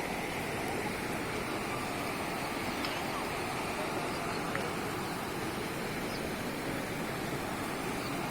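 Floodwater rushing, a steady even roar of noise with no breaks.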